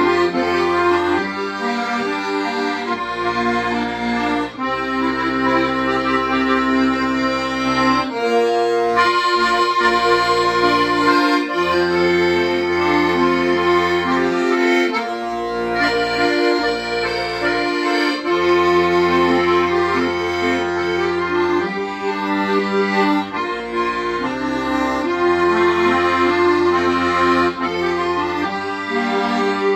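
Accordion playing a slow melody over sustained bass notes.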